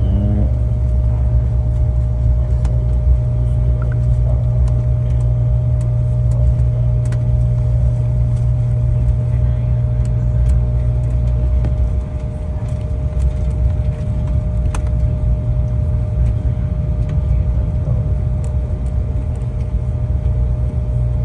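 Airliner cabin noise while taxiing after landing: the jet engines' steady low rumble with a constant whine, the rumble easing a little about halfway through.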